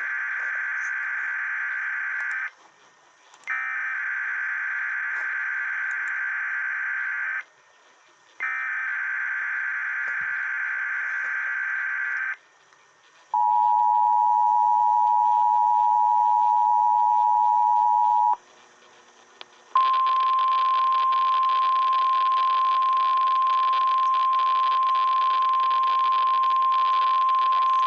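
Emergency Alert System weekly test on NOAA Weather Radio. First come three bursts of SAME digital header data, each a few seconds long. Then the two-tone attention signal sounds for about five seconds, and after a short gap the single steady NOAA Weather Radio warning alarm tone plays for about eight seconds over radio hiss.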